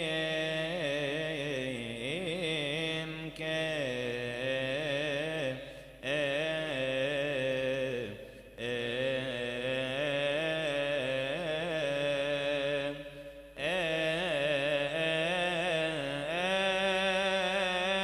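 Coptic Orthodox hymn chanted by men's voices, unaccompanied: long melismatic phrases with wavering, ornamented pitch and vibrato, broken by short breath pauses every three to five seconds.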